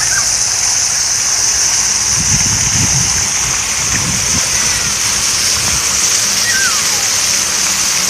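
Park fountain's water jet spraying and splashing steadily into its stone basin, a constant high hiss of falling water.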